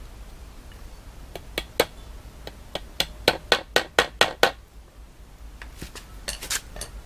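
Hammer driving small nails into a wooden screen frame: a few light taps, then a quick run of about seven sharp blows, then a few lighter taps near the end.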